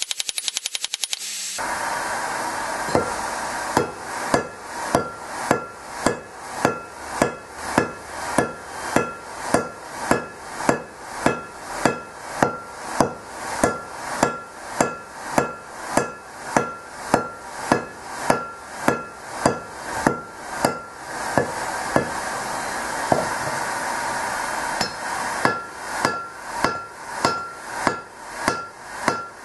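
Hand forging: a hammer strikes a red-hot steel hammer head on an anvil at about two blows a second, each blow followed by a short metallic ring. The blows pause for a few seconds about twenty seconds in, then start again, over a steady rushing noise.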